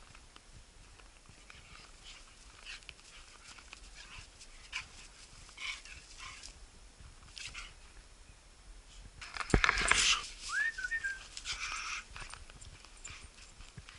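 Boxer dog's paws crunching softly on thin snow, then a louder flurry of scuffing about ten seconds in as it breaks into a run, with a short high whine just after.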